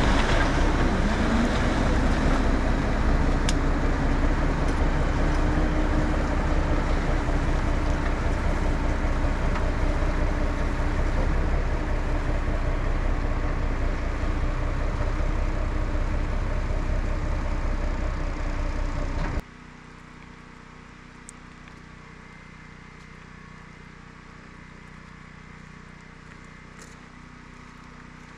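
1964 Kenworth self-loading log truck's engine running loud and steady, rising in pitch in the first couple of seconds as the truck pulls away. It cuts off abruptly about 19 seconds in, leaving a quiet outdoor background.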